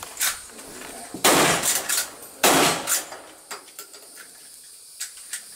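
Two loud revolver shots about a second apart, each with a short ringing tail, among fainter sharp clicks and pings.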